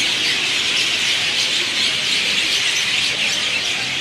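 Thousands of birds in one banyan tree chirping and squawking at once: a loud, steady, dense chorus of overlapping high calls.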